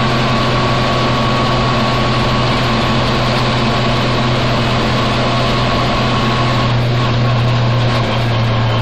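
1952 GMC XM211 truck driving at a steady cruise: the engine and drivetrain run with a constant low hum and road noise, heard from inside the cab. A thin steady whine rides over it and fades out about seven seconds in.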